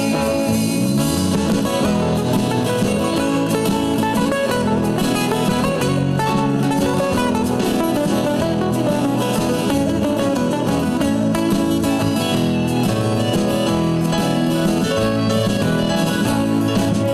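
A live band plays an instrumental passage between sung verses, led by guitars and other plucked strings, at a steady loudness.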